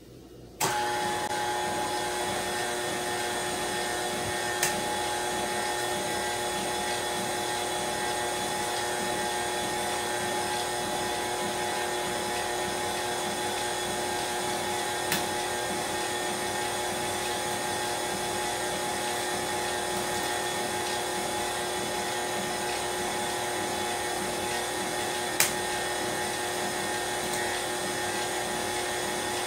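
KitchenAid stand mixer switched on about half a second in and running at a steady pitch, with three brief clicks along the way.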